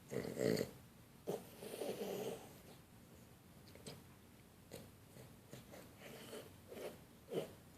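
A Boston terrier playing with a kitten: short breathy snorts and scuffling, mouthing sounds in irregular bursts, the loudest near the start, around two seconds in and near the end.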